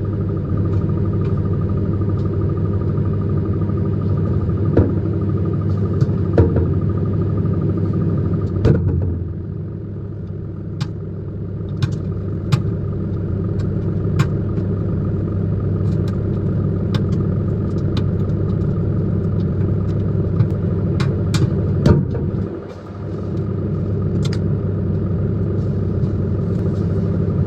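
Microwave oven running with a steady low hum, with scattered sharp pops and clicks from the toothpaste heating inside. The hum drops away briefly near the end.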